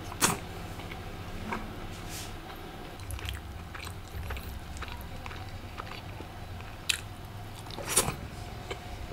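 Close-miked eating sounds: a man biting and chewing bread dipped in curry, with sharp mouth clicks and smacks scattered through, the loudest about eight seconds in.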